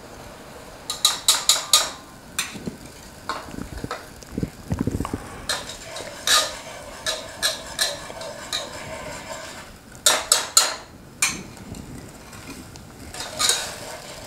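A big whisk stirring sugar into cognac in a hot pot, clicking against the pot in several quick runs of strokes.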